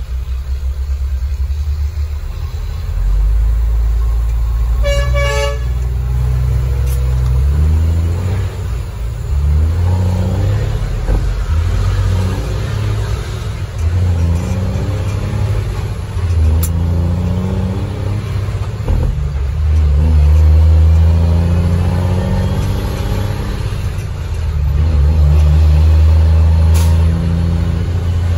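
Truck's Cummins ISM diesel engine running under load, its pitch rising and falling again and again through the gears. A brief horn toot sounds about five seconds in.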